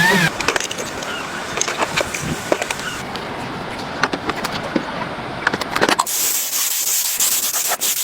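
Scattered clicks and knocks of hand work on the car, then from about six seconds in a steady scraping hiss of the bodywork being sanded.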